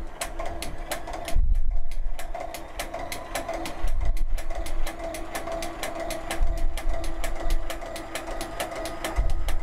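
Circular linker (kettel machine) running, its chain-stitch head sewing knitted stitches together on the linker points: a steady motor hum with quick, even ticks, about six a second. A low thud comes every two to three seconds.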